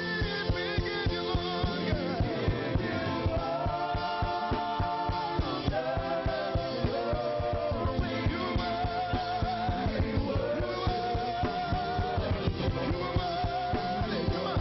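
Church praise and worship music: a band with a drum kit keeping a steady beat under voices singing long held, wavering notes.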